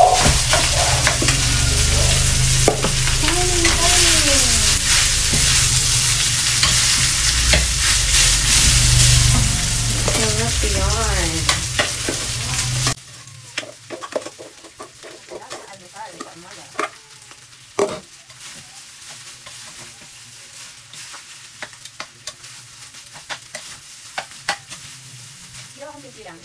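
Cooked rice sizzling in a hot frying pan with garlic while it is scooped in from a metal pot and stirred with a metal spatula. About halfway through the loud sizzle drops away abruptly, leaving scattered scrapes and clacks of the spatula against the pan and pot.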